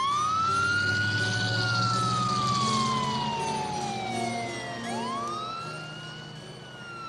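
Ambulance siren wailing in slow sweeps: a quick rise, a long fall in pitch, then another rise about five seconds in. An engine rumble runs low beneath it, and both fade as the ambulance drives away.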